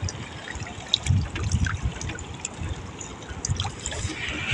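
Seawater trickling and splashing around a hand push net being worked and lifted in shallow water, with irregular low thuds of sloshing.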